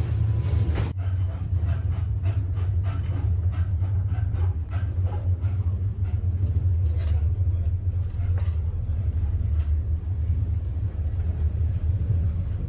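Steady low rumble of a passenger train in motion, heard from inside the carriage, with a run of irregular clicks and knocks from about a second in.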